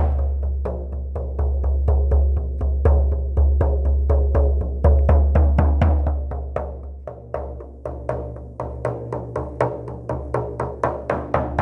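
Shamanic frame drum beaten in a steady, even pulse of about four strokes a second, each stroke leaving a low, ringing resonance. The strokes grow softer a little past the middle and stronger again near the end.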